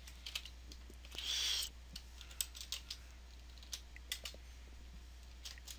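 Computer keyboard being typed on: irregular, scattered key clicks as a web address is entered. A short hiss comes about a second and a half in.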